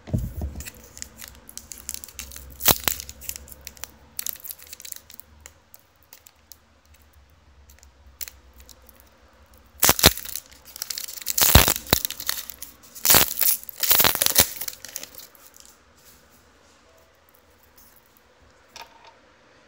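Trading-card pack wrapper being torn open and crinkled by hand, in irregular crackling bursts, loudest from about halfway through for several seconds, then quieting.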